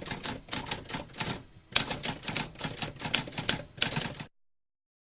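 Typewriter typing: a rapid run of key strikes with a brief pause about one and a half seconds in, cutting off abruptly about four seconds in, followed by total silence.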